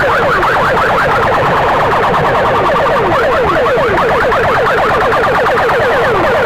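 Electronic siren-style effect blasted through big loudspeaker box rigs in a sound competition: rapid falling chirps repeating many times a second, overlapping and continuous.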